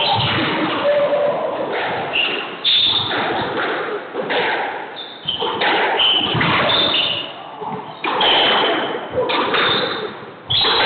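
A squash rally: the ball repeatedly thuds off the court walls and is struck by rackets, while sneakers squeak on the hardwood floor.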